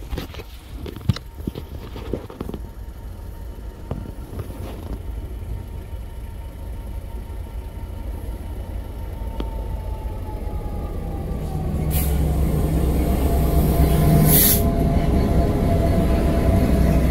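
Freight train hauled by a diesel locomotive, most likely an EMD Class 66, approaching and passing close by, growing steadily louder. About twelve seconds in, the locomotive's low engine rumble comes in loud as it draws level, then the wagons roll past on the rails.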